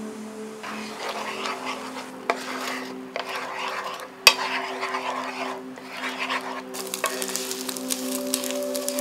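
Beaten eggs sizzling in hot oil in a nonstick frying pan while a spatula stirs and scrapes them into scrambled egg. A sharp tap of the spatula on the pan comes a little over four seconds in, and quick scraping strokes follow near the end.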